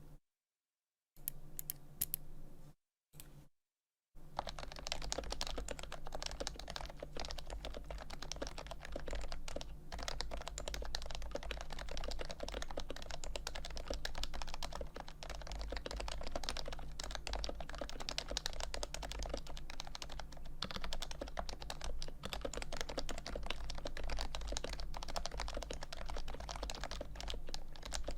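Typing on an HHKB Pro 2's Topre switches, with stock 45 g domes and lubed sliders and stabilizers. After a couple of short bursts, continuous fast typing sets in about four seconds in.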